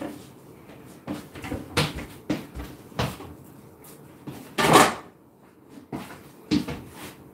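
Kitchen cupboard doors and containers knocking and clattering as things are fetched: about six separate knocks, the loudest a little under five seconds in.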